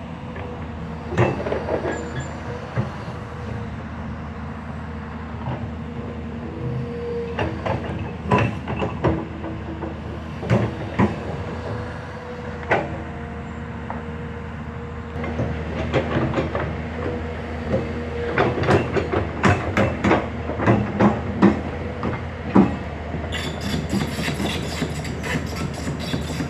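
Hyundai HX210S crawler excavator at work: the engine runs with a steady drone and a steady whine, over repeated sharp metallic clanks and knocks that come thick and fast in the second half.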